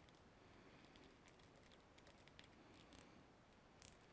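Near silence, with a few faint clicks and rustles of a plastic action figure and its cloth robe being handled and pressed together. Small clusters of clicks come about three seconds in and again near the end.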